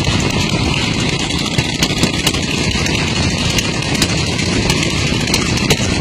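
Vehicle running at speed with steady road and wind noise, broken by scattered sharp knocks.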